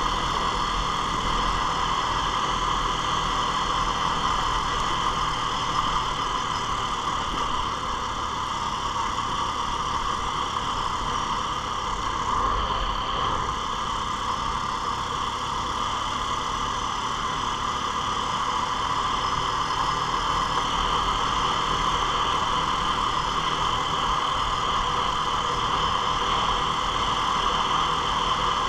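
ATV engine and drivetrain running steadily at a constant cruising speed, with a continuous whine mixed into the drone.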